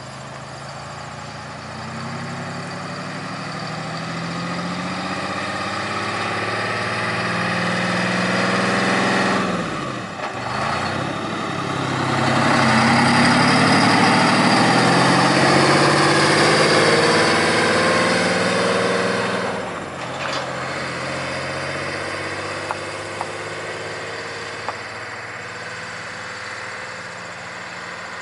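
Peterbilt cabover semi tractor's diesel engine pulling away and passing close by. The engine note climbs through the gears with shifts about ten and twenty seconds in. It is loudest as the truck goes by, then fades as it drives off.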